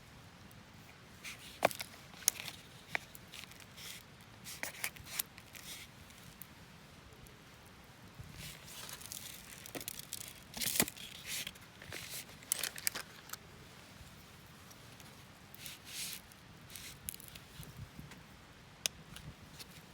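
Scattered small clicks and taps with short crinkling, rustling bursts, as of things being handled at close range.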